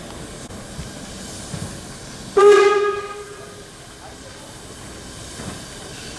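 A steam locomotive's whistle gives one short blast a little over two seconds in, sounding for about a second and then fading, over a steady hiss of steam from locomotives standing in steam.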